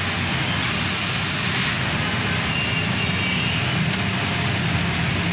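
Steady motor-vehicle noise, with a brief hiss about a second in.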